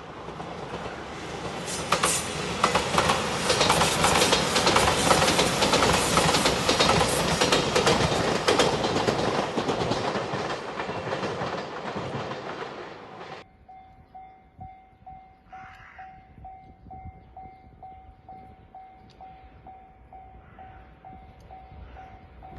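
A Shiokaze limited express train passing at speed, wheels clicking over the rail joints. It cuts off suddenly about halfway through, leaving the level crossing's electronic warning bell ringing in a steady pulse, about two rings a second.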